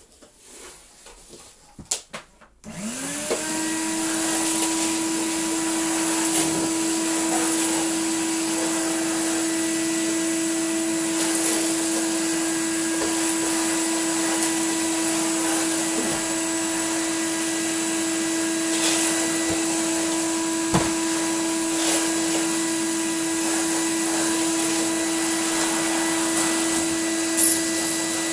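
1988 Numatic Henry HVR200 vacuum cleaner switched on about two and a half seconds in; its motor spins up quickly to a steady whine and runs on as the floor tool is pushed over a laminate floor, with a few sharp clicks. The motor runs on newly fitted carbon brushes that are being bedded in.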